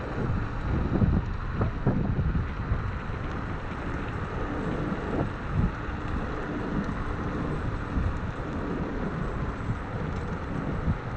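Wind buffeting the microphone of a rider on an electric scooter at speed, with road rumble, rising and falling in uneven gusts.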